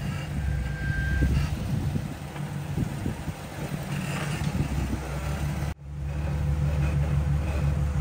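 Jeep engine running at low revs as it crawls over a boulder, with a few knocks and scrapes early on. The sound cuts out for a moment just before the sixth second, then the engine comes back steadier.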